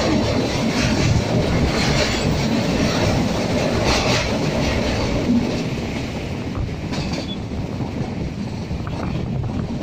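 Passenger train running along the track, heard from aboard: a steady rumble and rush of wheels on rails, with occasional light clatter, easing a little in loudness about halfway through.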